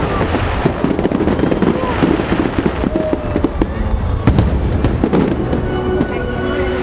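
A fireworks display with shells bursting in rapid succession: many sharp bangs and crackles close together over a continuous rumble.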